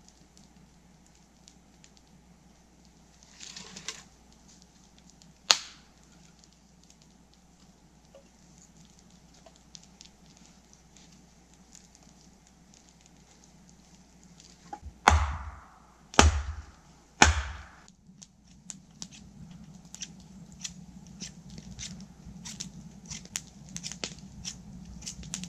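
Wood struck with heavy blows: a single sharp strike about five seconds in, then three loud blows about a second apart, followed by a run of light clicks and taps.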